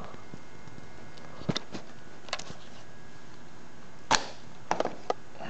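A handful of short, sharp clicks and taps from fingers working the Baader Click Lock eyepiece clamp on a 2-inch star diagonal. The clicks are scattered, and the loudest comes about four seconds in, followed by a quick cluster of three.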